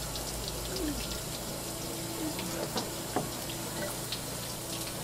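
Tap water running steadily from a hose nozzle and splashing onto a fish on a cutting board, with a few light knocks in the middle.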